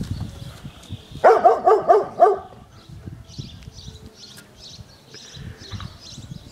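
Dog barking: a quick run of about six sharp barks, about a second in.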